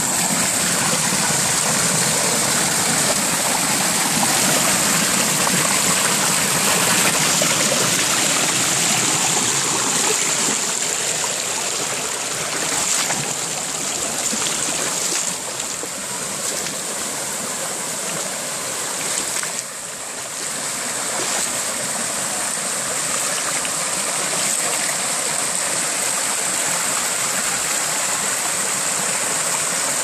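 Rocky mountain stream rushing and splashing over rocks and small cascades, a steady rush of water. It softens a little about halfway through, then comes back up.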